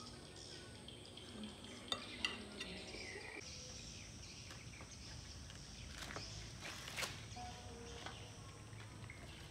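A couple of sharp clicks, then fresh ears of corn husked by hand: green husk leaves rustling and tearing off, with a few sharp snaps.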